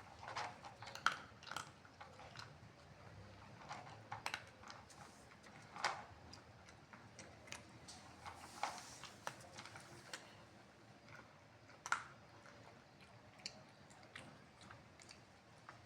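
A cat chewing food: faint, irregular wet clicks and crunches, with a few sharper ones about a second in and near twelve seconds in.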